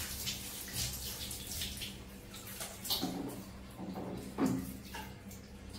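Water from a plastic dipper splashing and dripping during a baby monkey's bath, a run of irregular splashes with a few louder ones about three seconds and four and a half seconds in.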